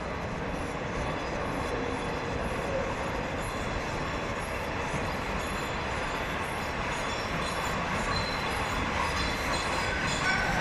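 Peppercorn A1 Pacific steam locomotive 60163 Tornado and its coaches arriving slowly at a station: a steady rumble of wheels on rail that grows gradually louder as the train draws closer.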